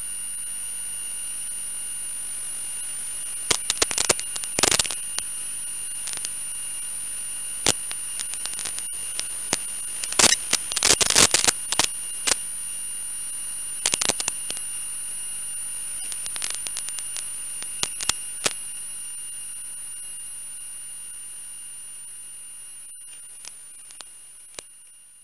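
Steady high-pitched whine over hiss from the audio channel of a 5.8 GHz analog FPV video link, recorded through the receiver. It is broken by bursts of crackling static, the longest about ten to twelve seconds in, and fades out near the end.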